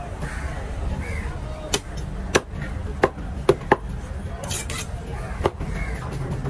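Large fish knife chopping through yellowfin tuna flesh onto a wooden board: a series of sharp chops and knocks, about six, unevenly spaced, over a steady low hum.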